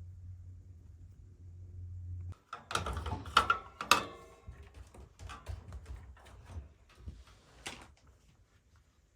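Kitten purring, a low steady rumble that stops about two seconds in. It is followed by a run of loud knocks and clicks close to the microphone, loudest around three to four seconds in, then thinning out.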